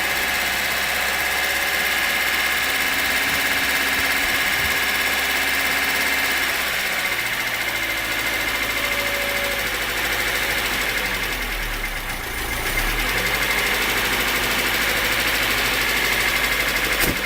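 VAZ-2105 engine idling steadily, with light valve chatter from valves that need adjusting. The heavy timing-gear knock from the worn small crankshaft timing sprocket is gone now that the sprocket has been replaced.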